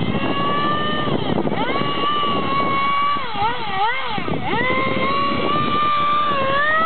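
Nitro (glow-fuel) RC car's small two-stroke engine running at high revs. Its high note holds, then drops and rises several times around the middle and again near the end as the throttle is lifted and reapplied.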